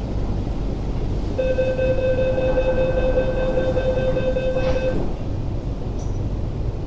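Door-closing warning tone of an MTR SP1900 (IKK-train) car: one steady high beep held for about three and a half seconds while the doors slide shut, over the train's steady low hum.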